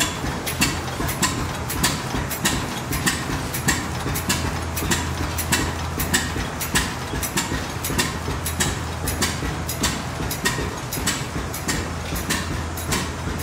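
Several antique single-cylinder stationary gas engines running together, their exhaust beats overlapping as sharp, unevenly spaced knocks several times a second over a low hum.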